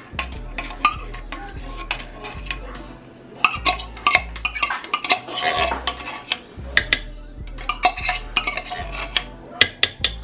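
A metal spoon scraping the inside of a tin can of condensed soup to get the last of it out, with many short, irregular clicks and scrapes of spoon on metal.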